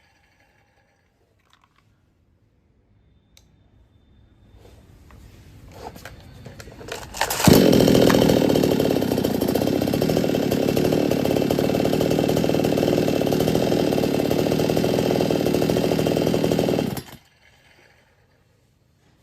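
58 cc two-stroke chainsaw engine idling faintly, then opened to full throttle about seven seconds in and held at steady high revs for about nine seconds before cutting off abruptly.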